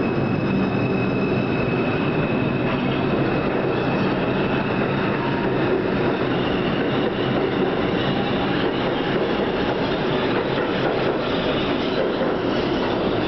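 New York City Subway R142 train pulling into the station on a curve: a steady rumble of wheels on rail with a thin, high wheel squeal that is strongest in the first few seconds.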